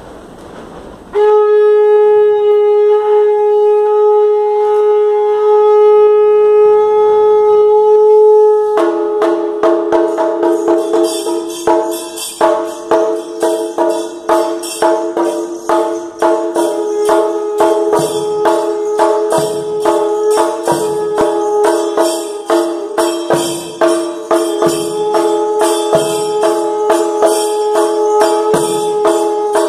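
A conch shell blown in one long steady note for about seven and a half seconds. From about nine seconds in, a chenda and a smaller barrel drum are beaten fast with sticks, with small cymbals clashing and ringing tones held under the drumming.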